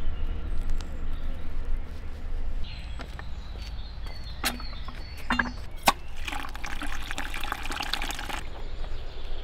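Water from a canal-side drinking-water tap running into a plastic bucket for about two seconds, starting around six seconds in and cut off abruptly as the tap is shut. A couple of sharp clicks come shortly before the flow.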